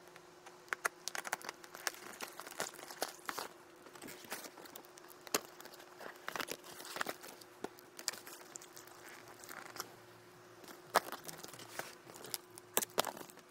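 Taped cardboard shipping box being opened by hand: packing tape peeling and cardboard flaps tearing and crinkling in irregular crackles and rustles.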